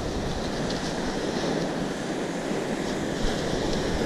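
Surf washing onto a sandy beach, with wind rumbling on the microphone and a faint click about three seconds in.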